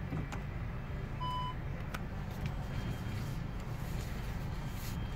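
A single short electronic beep about a second in, the Audi A3's parking-aid chime as reverse is selected and the display switches to the rear camera, over the steady low hum of the car idling, with a few faint clicks.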